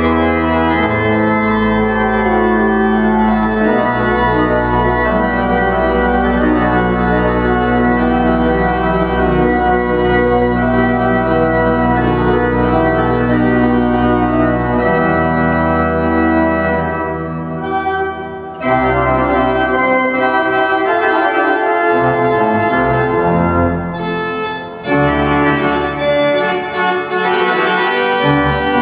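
Pipe organ playing loud sustained chords over deep held pedal bass notes. The deep bass drops out about halfway through, and the sound briefly thins twice before the full chords return.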